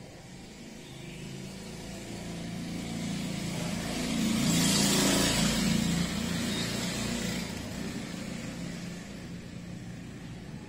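A motor vehicle passes by: its engine hum and tyre noise swell to a peak about halfway through, then fade away.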